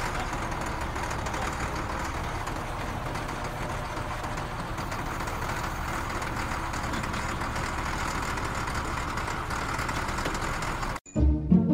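Motor grader's diesel engine running steadily. It cuts off abruptly about 11 seconds in.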